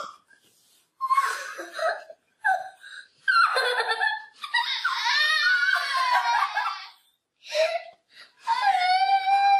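Girls laughing and squealing with excitement in short bursts, then a long high cry, breaking near the end into a steady held wail of overjoyed crying.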